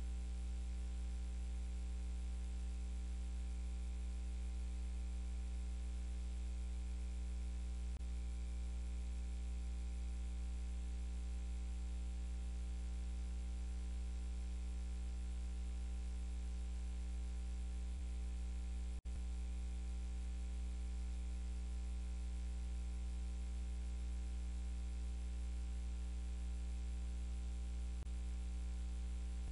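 Steady electrical hum and buzz with a faint hiss, unchanging, as from mains hum on an idle audio line. The signal drops out for an instant about two-thirds of the way through.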